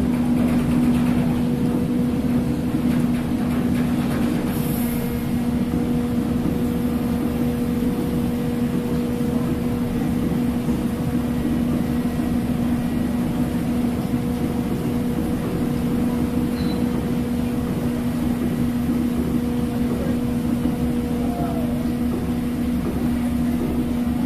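Passenger ferry's engines running, a steady drone with a constant low hum over a rumble.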